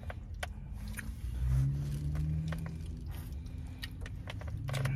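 Someone chewing food, with scattered light clicks and scrapes of a plastic fork against a takeout container, over a low steady rumble. A low hum swells about a second and a half in and again near the end.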